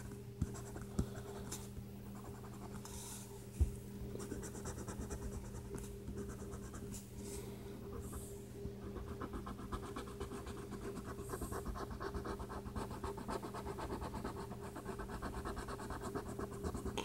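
Yellow colouring on paper: rapid back-and-forth strokes make a faint, continuous scratching over a steady low hum. A single sharp knock comes about three and a half seconds in.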